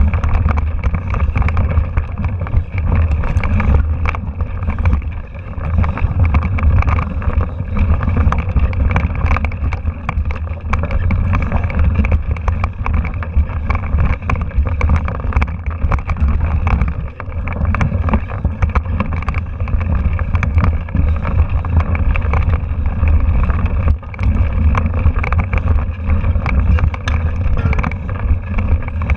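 Mountain bike rolling over a rocky dirt trail, heard through a handlebar-mounted camera: a constant low rumble of wind buffeting and vibration, with dense rattling and small knocks from the bike and mount over the stones.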